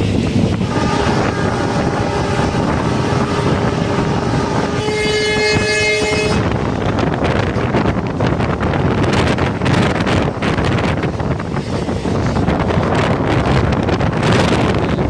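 Moving passenger train with its running rumble and wind rushing over the microphone. A train horn sounds for about five and a half seconds near the start, shifting to a brighter, higher chord for its last second and a half before it stops.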